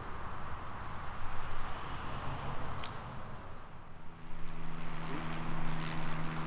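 Outdoor background noise, then about four seconds in a motor vehicle engine starts a steady hum.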